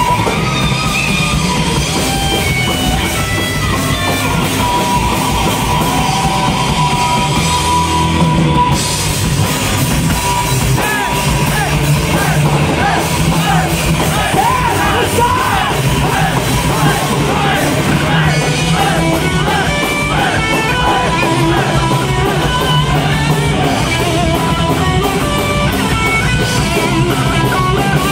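Live folk-metal band playing loud: distorted electric guitars, bass guitar and drum kit, with a lead voice singing a wavering melody over them.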